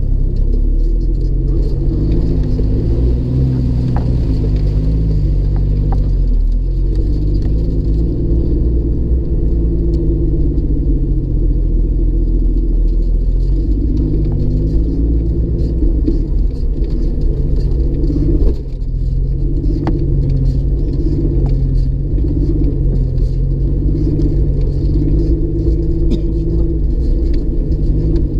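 A Jeep driving, heard from inside the cabin: a steady low rumble of engine and tyres. The engine note rises and falls with the throttle, and there is a short break in the sound about two-thirds of the way through.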